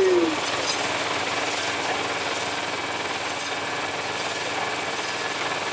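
An engine running steadily with a constant drone and hum, the sound of engine-powered exhibition machinery at work.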